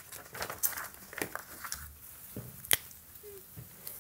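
Quiet handling noises of a pen and paper at an easel: light taps and rustles, with one sharp click a little under three seconds in.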